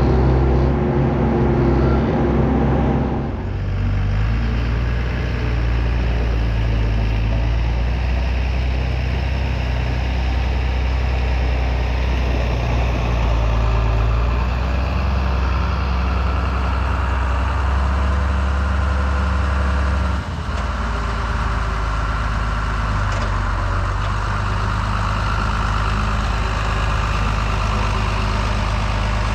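A tractor engine running steadily under load, its note shifting about three seconds in and again about two-thirds of the way through.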